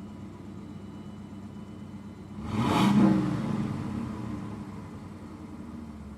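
Car engine idling, blipped once about two and a half seconds in: a quick rise in revs, then a slower fall back to a steady idle.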